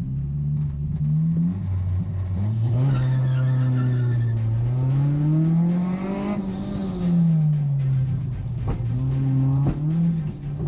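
Car engine revving hard under load, its pitch climbing for several seconds and then falling back, with tire squeal as the car is driven fast around a track.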